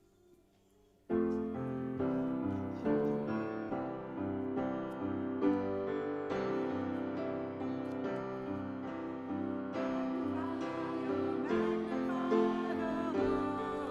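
Piano playing the introduction to a congregational praise song: sustained chords and a melody that start abruptly about a second in and carry on steadily.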